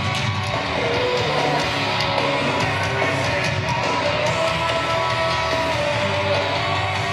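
Rock music with singing and guitars, playing steadily.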